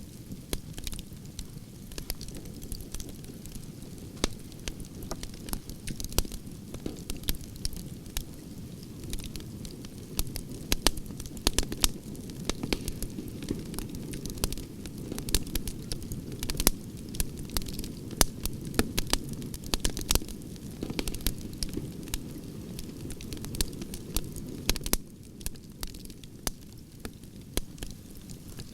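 Campfire of burning logs crackling and popping, many sharp snaps over a low steady rumble of the flames.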